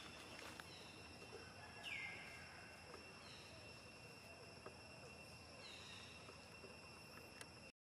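Faint outdoor ambience: a steady high insect drone, with a few short downward-sliding chirps, the clearest about two seconds in. The sound drops out briefly near the end.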